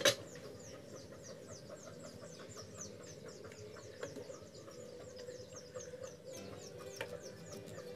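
Birds chirping: a long run of short, high, falling chirps, several each second, over a steady low hum. A sharp knock at the very start is the loudest sound.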